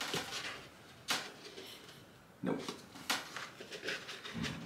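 Handling noise of helmet liner parts being turned over and fitted: scattered sharp clicks and rustles, with a quick run of small clicks a little past three seconds in.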